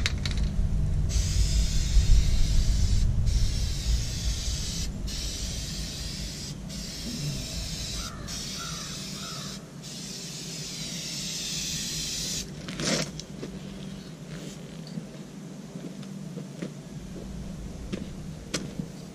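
Aerosol spray can hissing in long bursts with short pauses between them as the rocker panel is sprayed, stopping about twelve seconds in; a single knock follows shortly after.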